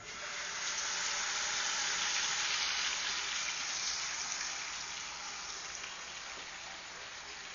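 Wet ground onion-tomato masala paste dropped into hot oil in a pan, sizzling hard as its water hits the oil. The sizzle starts suddenly and slowly dies down as the paste settles.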